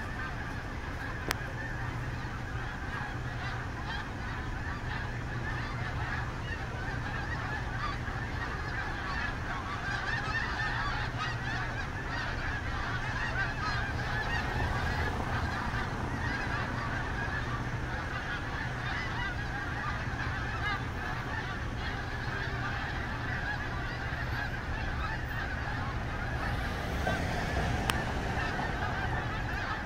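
A very large flock of snow geese calling overhead: a dense, unbroken chorus of countless overlapping honking calls, with a low steady hum underneath.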